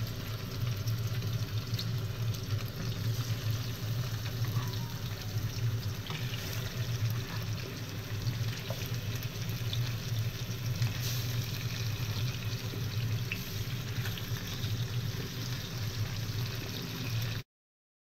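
Tuna steaks sizzling in hot oil in a frying pan, a steady hiss over a steady low hum. It cuts off suddenly near the end.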